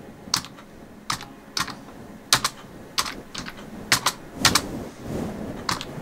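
Computer keyboard keys clicking as they are pressed one at a time with the pointed end of a sweet potato: slow, uneven clicks, roughly two a second, some in quick pairs.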